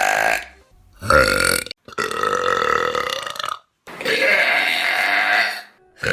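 A run of loud human burps, one after another from different people: about four long, drawn-out belches of one to two seconds each, separated by short pauses.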